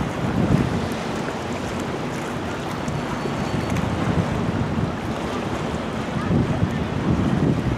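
Strong wind buffeting the microphone in irregular low gusts, over a steady rush of choppy river water.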